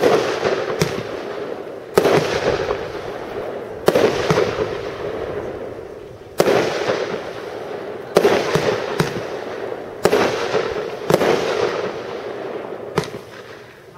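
Fireworks display: aerial shells bursting, with about ten sharp bangs a second or two apart, each trailing off in a long echo.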